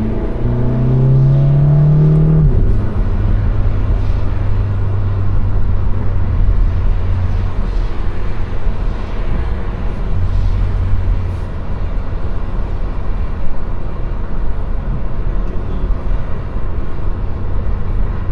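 Turbocharged 2.0-litre four-cylinder (EA888 gen 3) of a 2015 Volkswagen GTI pulling under acceleration, its pitch rising for about two seconds and then dropping at a gear change, after which it settles into a steady low drone at cruise over road noise.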